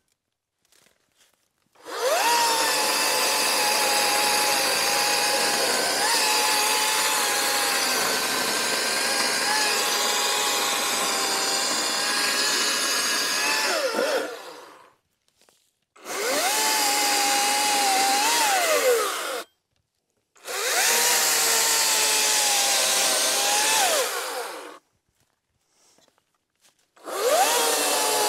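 Harbor Freight Atlas 80V brushless 18-inch battery chainsaw cutting wood in four runs: each opens with a quick rising whine as the trigger is pulled, holds a steady high whine while the chain cuts, and falls away on release, with quiet pauses between. The first run is the longest, about twelve seconds.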